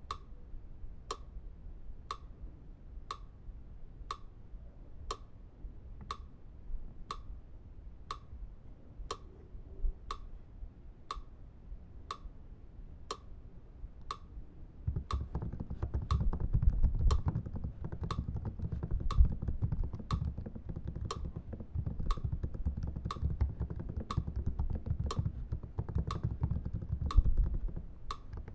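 Clock ticking steadily, about once a second. From about halfway a low rumble joins in underneath.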